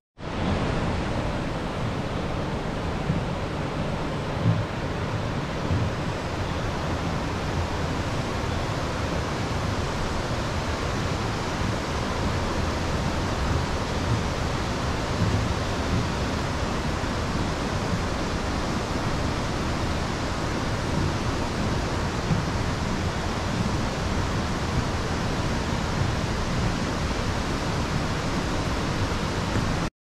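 River rapids rushing over rock ledges, a steady, even rush of water.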